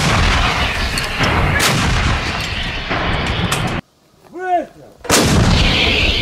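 A 2S1 Gvozdika 122 mm self-propelled howitzer firing: a blast right at the start whose loud echo carries on for several seconds, then after about a second of near quiet another loud blast about five seconds in.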